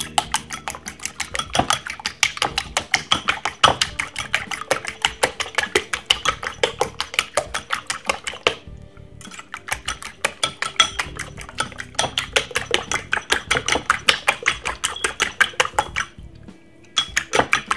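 Metal fork beating eggs in a ceramic bowl: rapid, even clinks of the fork against the bowl, with a brief pause about halfway through and another near the end.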